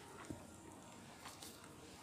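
Cattle feeding, faint: a few soft clicks and crunches from grazing and chewing.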